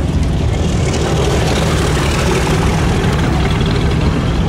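A vehicle engine running steadily, a low rumble with no change in pitch.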